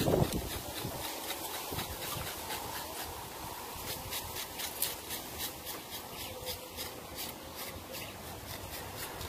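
Knife blade scraping bristles off a scalded hog's leg and foot in a quick run of short, evenly spaced strokes, hair being stripped from the carcass after a hot-water scald.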